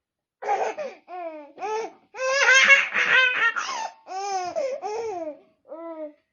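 A baby laughing in a string of high-pitched bursts, the pitch arching up and down with each laugh.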